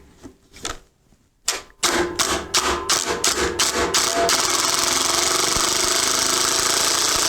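Ryobi ONE+ HP brushless impact driver (PBLID02) in assist mode backing out a large lag screw. Its hammering starts as separate impacts, about four a second, then from about four seconds in speeds up into a continuous rapid rattle.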